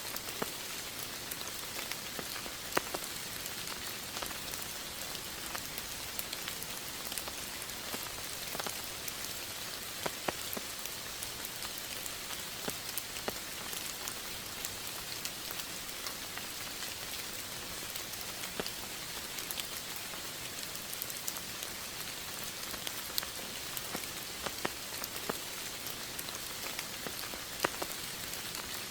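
Steady rain falling, with many separate drops striking a surface in sharp little taps scattered through the even hiss.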